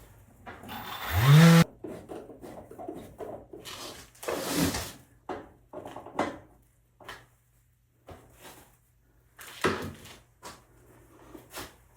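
Handling and tool noise: scattered knocks and rubbing, with a short, loud rising whine about a second in.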